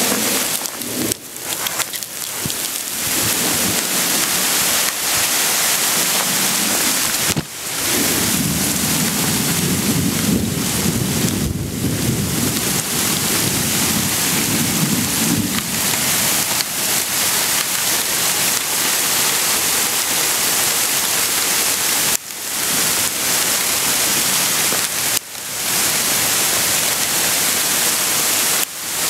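Hail pelting down hard in a dense, steady hiss. A low rumble of thunder rolls under it for several seconds, starting about a quarter of the way in.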